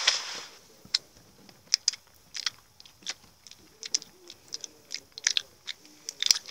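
Two people chewing candy: a run of short, irregular mouth clicks and smacks. A brief swish comes right at the start.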